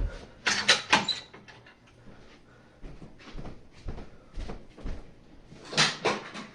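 Hard plastic clicks and knocks from handling a fire alarm horn strobe unit while its running strobes are being shut off. The taps and clatters come at uneven intervals, with a cluster about half a second to a second in and another near the end.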